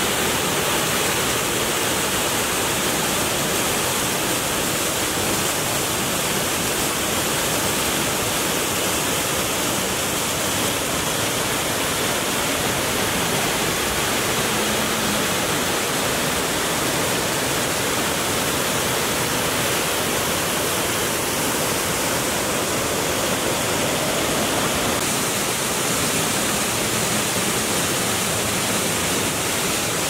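Small waterfall pouring over rocks into a pool close by: a steady rush of falling, splashing water.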